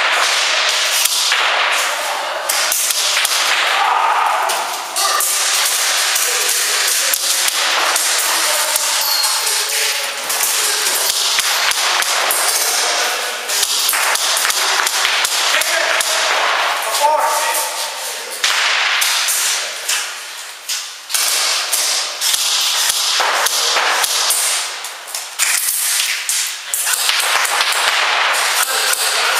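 Airsoft gunfire: a dense run of sharp snapping shots from airsoft guns, fired in rapid bursts with only brief pauses.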